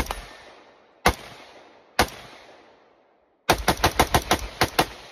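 AR-15-style rifle firing: three single shots about a second apart, then a rapid string of about ten shots in just over a second. Each shot trails off in a long echo.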